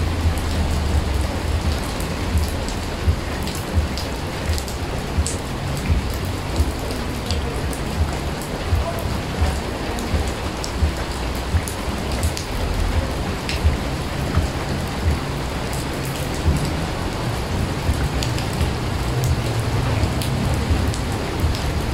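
Rain falling into a wide puddle on paved ground: a steady hiss of drops, with louder single drops splashing about once a second and a low rumble underneath.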